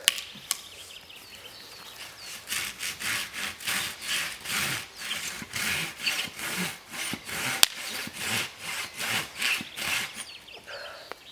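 Silky Katanaboy folding saw cutting through wood in steady back-and-forth strokes, about two a second, starting about two seconds in and stopping near the end. A sharp click comes at the very start.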